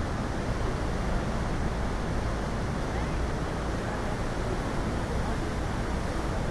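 Steady roar of rushing water and wind on a tour boat, with faint voices of passengers in the background.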